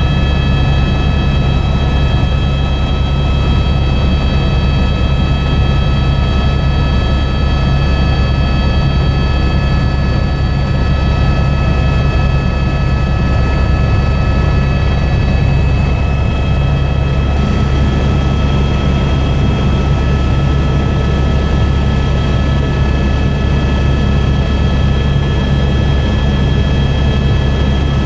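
Helicopter in flight heard from inside the cabin: steady, loud rotor and engine noise, a low drone with a thin high whine on top.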